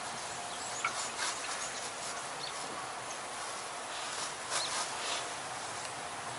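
Steady outdoor hiss with a few brief high chirps and several light clicks scattered through it.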